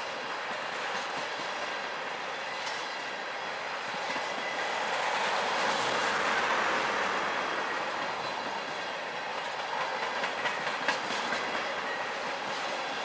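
Freight train of tank cars rolling past close by: a steady rush of steel wheels on rail, swelling about halfway through, with a few sharp clicks around ten to eleven seconds in.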